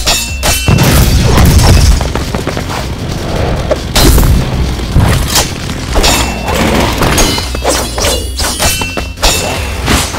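Cartoon fight sound effects: a rapid run of sharp metal clashes and heavy booming hits, chainsaw blades striking a sword, over driving background music.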